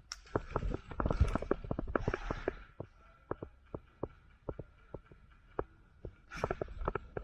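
A run of irregular close clicks and thumps, two or three a second, mixed with short bursts of rustling near the start, about two seconds in and again near the end, typical of a player's footsteps and gear moving against a body-worn camera.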